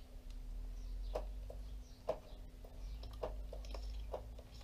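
Short, soft knocks about once a second, with lighter ticks between them, while a motorcycle's rear brake is bled through a tube into a jar. Faint birdsong is heard over a steady low hum.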